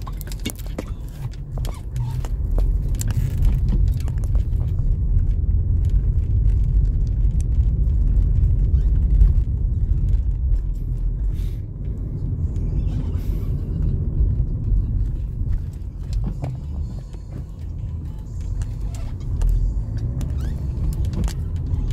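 Steady low road and engine rumble inside a moving car's cabin, with scattered light clicks and knocks.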